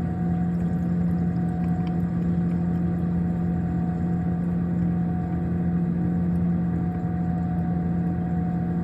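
Refrigerator's compressor and condenser fan running with a steady low hum.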